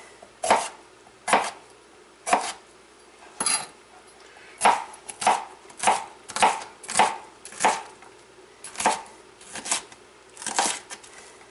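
Large kitchen knife dicing a red bell pepper on a plastic cutting board: about a dozen separate chops, irregularly spaced and coming roughly two a second in the middle stretch.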